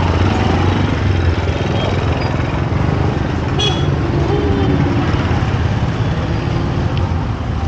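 Steady street noise: a low engine rumble of road traffic, with faint voices in the background.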